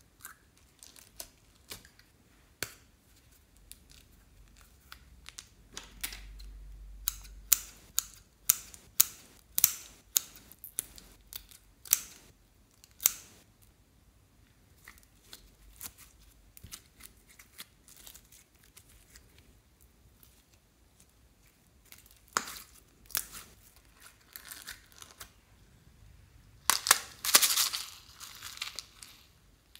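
Hands squishing and stretching clear slime, making sharp wet pops and clicks. They come in a run roughly every half second for several seconds, then more sparsely. Near the end there are a few seconds of crinkly rustling.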